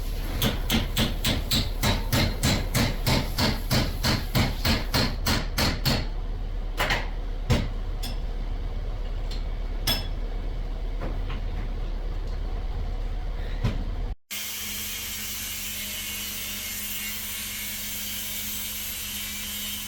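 Hammering: quick, even blows about four a second for around six seconds, then a few scattered knocks. After a sudden cut about fourteen seconds in, a steady hiss with a low hum.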